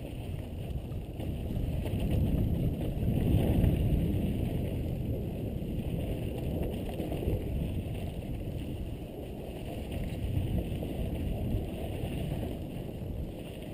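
Mountain bike descending a dirt singletrack: wind rushing over the microphone mixed with the rumble of tyres and the bike rattling over the dirt, loudest a few seconds in.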